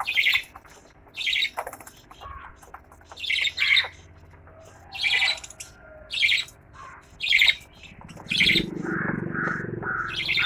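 Small pet parrots (lovebirds or budgies) giving short, harsh squawks about once a second, with a quicker run of softer chattering notes near the end.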